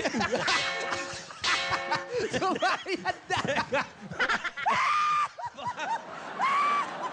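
Three short ringing, clanging sound-effect stings in quick succession, followed by laughter and two drawn-out cries.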